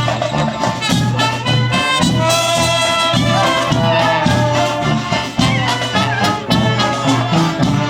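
Klezmer street band playing live: brass horns carry the melody in sustained notes over a steadily pulsing bass line.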